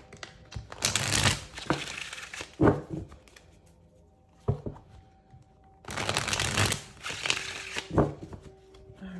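A tarot deck being shuffled by hand, in two bursts of dense crackling card noise, each ending with a sharp tap of the cards.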